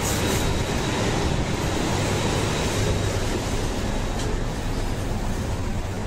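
Steady city street traffic noise, with a city bus's engine running at its stop and cars passing, getting louder at the very start on stepping out through the station doors.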